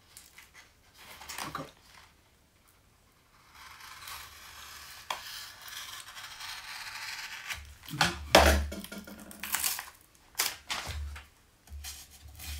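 Handling of a self-adhesive hook-and-loop sanding pad as a piece is cut off and readied for sticking. A steady papery hiss starts about four seconds in and lasts several seconds, then comes a cluster of sharp knocks and rustles about eight seconds in.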